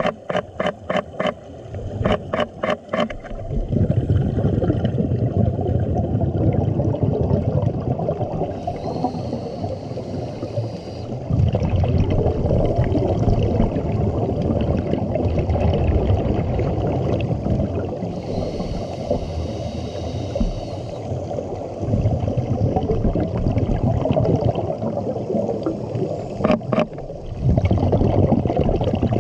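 Scuba regulator breathing heard underwater: long stretches of exhaled bubbles gurgling, twice giving way to a hissing inhalation through the regulator. A quick run of sharp clicks comes in the first three seconds.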